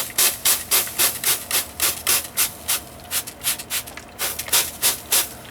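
Rapid back-and-forth rubbing strokes by hand, about three to four a second, like abrasive being scrubbed over a surface.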